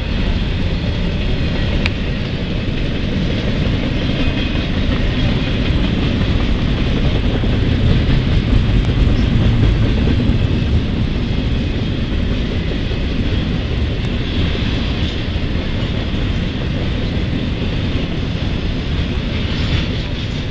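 Double-stack intermodal freight cars rolling past on the main line: a steady, continuous rumble of steel wheels on rail.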